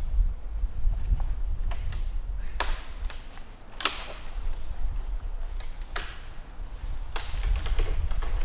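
Scattered sharp knocks and clicks, a few seconds apart, over a steady low rumble.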